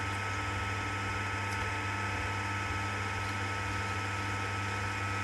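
Electric potter's wheel motor running at a steady, moderate speed: an even hum with higher whining tones, unchanged throughout, while a clay bowl is shaped on it.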